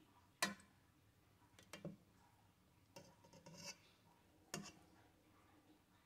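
Faint taps and scrapes of a metal spoon against a pot as it pushes soaking morel mushrooms down under the water. The sharpest tap comes about half a second in, a few softer scrapes follow, and another distinct tap comes at about four and a half seconds.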